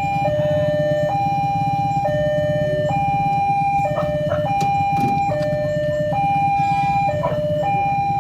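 Railway level-crossing warning alarm sounding its electronic two-tone signal, switching between a higher and a lower tone about once a second, with a couple of steps cut short. The stutter is what the uploader calls the crossing 'coughing' (batuk-batuk). A steady low rumble runs underneath.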